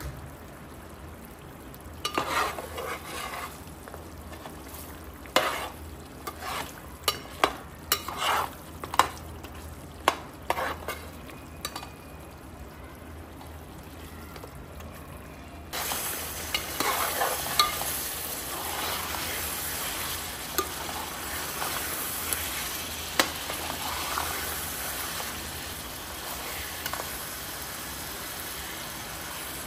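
A metal spoon stirring beef curry in a metal pot, clinking and scraping against the pot while the oil and masala sizzle. Sharp clinks come one after another in the first half; about halfway through the sizzle gets louder and steadier. The meat and masala are cooked through and frying in their own oil.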